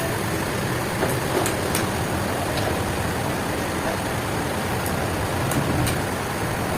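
Heavy machinery running steadily, a low engine-like hum with a few short sharp ticks over it.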